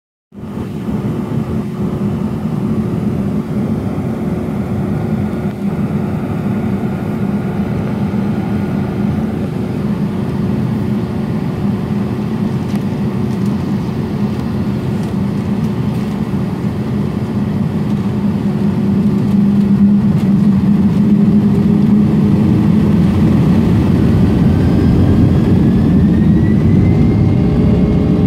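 Boeing 757-200 jet engines heard from inside the cabin, running with a steady hum at taxi power. The sound grows louder about two-thirds through, and near the end a whine rises in pitch as the engines begin to spool up for takeoff.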